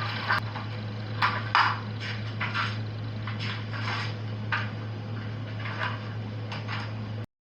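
A run of irregular light clicks and clatters, about two a second, over a steady low hum; it cuts off suddenly near the end.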